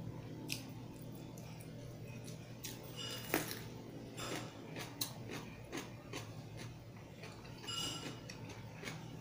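Raw cucumber being bitten and chewed close to a clip-on microphone: irregular crisp crunches and wet chewing clicks, the loudest crunch about three and a half seconds in.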